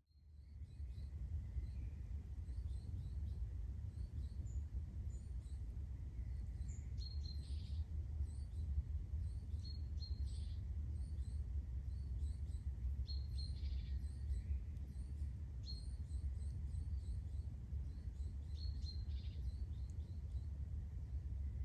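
Forest birds singing: many short, high chirps and calls repeating over a steady low rumble.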